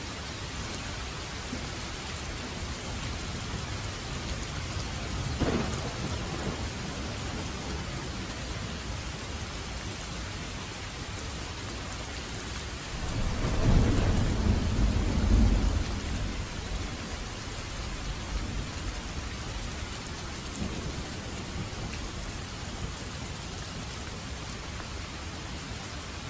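Steady rain falling in a thunderstorm. A short crack of thunder comes about five seconds in, and a longer, louder low rumble of thunder near the middle.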